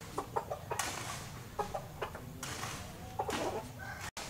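Chickens clucking in a run of short calls.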